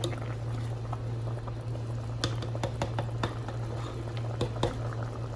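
A pot of tripe, cow skin and oxtail boiling, bubbling with irregular pops, over a steady low hum.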